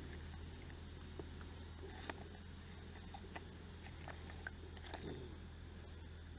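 Faint handling of a nylon knife sheath as it is picked up and moved over split wood: a few light clicks and rustles over a steady low hum of background noise.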